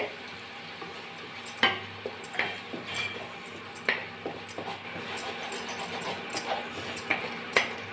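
Wooden spatula stirring and scraping a wet ground-spice paste around an aluminium kadai, with scattered knocks of the spatula against the pan.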